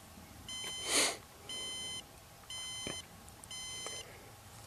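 Rocket flight altimeter beeping out its recorded peak altitude as counted beeps: half-second beeps at a steady pitch, about one a second, four in all. A short breathy rush of noise about a second in.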